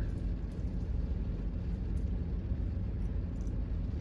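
Heavy rain on a parked car, heard from inside the cabin: a steady low rumble with a few scattered sharp drop ticks.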